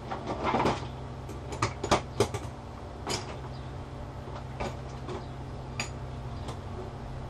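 Small metal tool clicking and scraping against a smartphone's metal frame, in a few short scrapes and sharp taps, loudest about two seconds in, over a steady low hum.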